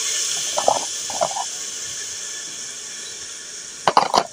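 Spice masala sizzling in hot oil in an aluminium pot, a steady hiss that slowly dies down, with two short ladle scrapes around a second in. Near the end a few sharp clicks and knocks.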